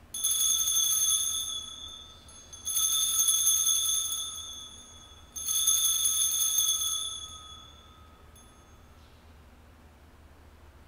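Altar bell struck three times, about two and a half seconds apart, each ring a clear steady tone that fades away. The bell marks the elevation of the chalice at the consecration of the Mass.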